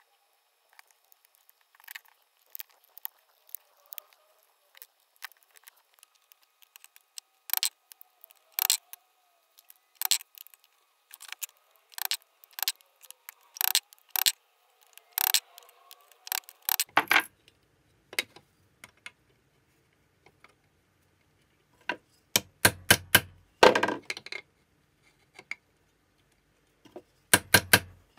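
Sharp metallic clinks, clicks and knocks of dismantled car-horn parts (steel diaphragm, rings and housing) being handled and set down on a workbench and worked in a steel bench vise, in sped-up footage. The clicks come in an irregular rapid string, with denser clusters late on.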